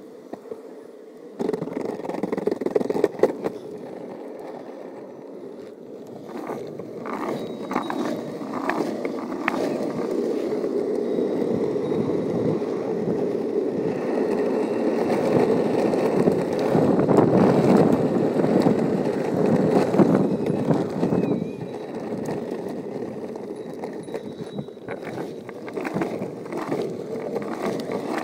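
Wooden pintail longboard rolling over pavement: a steady wheel rumble that begins about a second and a half in and grows louder toward the middle, with scattered clicks and knocks.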